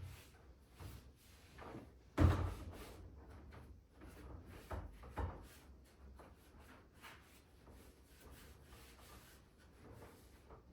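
Scattered household knocks and rustles, with one sharper thump about two seconds in and two lighter knocks around five seconds; no vacuum is running.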